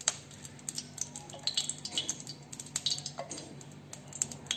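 Scattered light metallic clinks and taps of a steel bowl and spoon against an iron kadhai as mustard oil is poured in, over a faint low steady hum.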